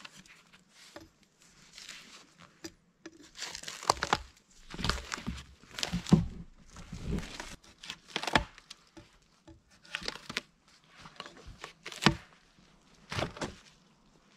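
Bark being peeled off a cedar log with a blade, in a series of irregular scraping, tearing strokes. The bark is just starting to freeze.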